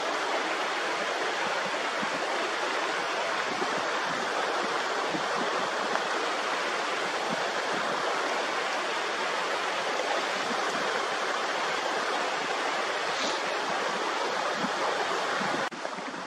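Shallow mountain stream rushing steadily over rocks. About a second before the end it drops abruptly to a quieter flow.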